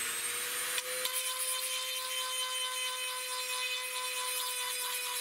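Dremel rotary tool running at full speed with a steady high whine, its grinding bit working against the hard plastic of a toy blaster to grind off a molded logo; the sound changes slightly about a second in as the bit bites.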